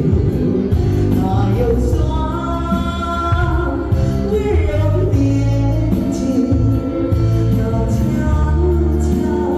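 Music with singing: a sung melody over a band or backing track with a strong, steady bass.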